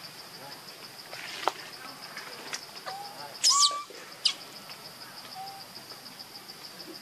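Outdoor forest ambience: a steady, high, pulsing insect-like trill with a few short, sharp high chirping calls, the loudest about halfway through.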